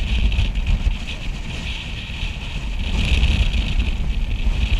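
Wind buffeting the microphone with a heavy low rumble that swells about three seconds in, over the steady rush of surf breaking and washing across a rocky reef.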